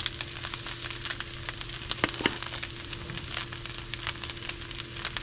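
Ground wild hog sausage sizzling and crackling in a hot cast iron skillet as flour is spooned over it, with two sharper clicks about two seconds in and a steady low hum underneath.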